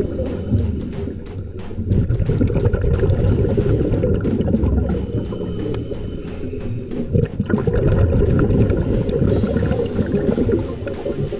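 Muffled underwater noise, as heard by a camera inside its housing below the surface: a dense low rush of water with many scattered sharp clicks.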